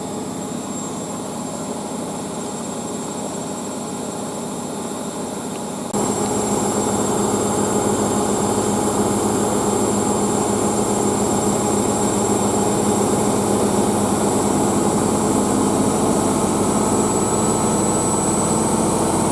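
Beko WM6143S washing machine running near the end of its wash cycle, a steady mechanical whine and hum. About six seconds in it gets suddenly louder, with a steadier high whine over the hum.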